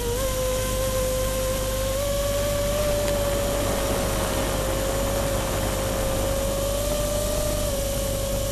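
FPV quadcopter's motors and propellers whining in flight at a steady, nearly constant pitch, over a rushing hiss.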